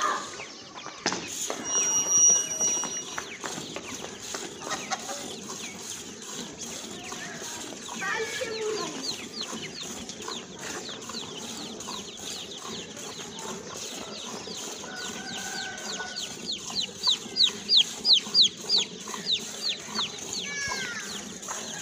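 Milk squirting in a steady rhythm into a steel bucket as a cow is milked by hand, about three squirts a second and loudest near the end. Hens cluck in the background, and a short high-pitched sound comes about two seconds in.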